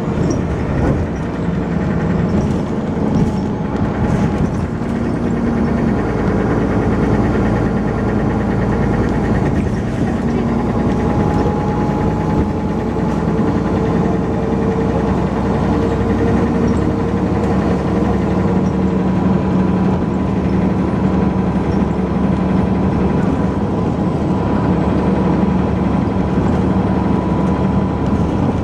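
Dennis Arrow double-deck bus's diesel engine running continuously under way, a steady drone whose pitch drifts slightly up and down.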